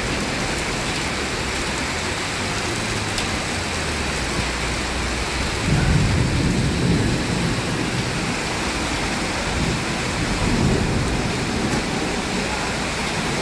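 Heavy rain pouring steadily, with a low rumble of thunder swelling about six seconds in and a weaker one about ten seconds in.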